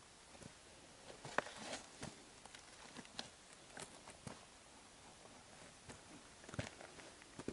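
Footsteps on dry, stony desert ground and dry grass, faint and uneven at about two steps a second.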